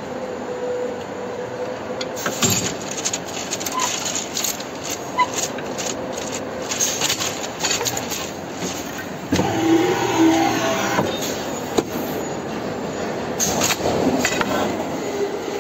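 CNC transformer oil duct bonding machine running: a steady mechanical hum with repeated clicks and knocks from its moving parts. About nine seconds in, a louder whirring with a steady buzzing tone lasts for about a second and a half.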